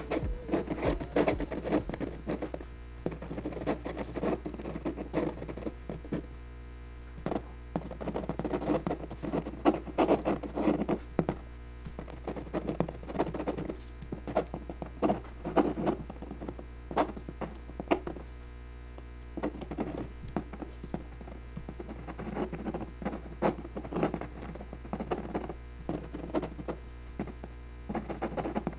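Fountain pen nib scratching and tapping on heavy Bristol board in quick bursts of short strokes, with brief pauses between, over a faint low hum.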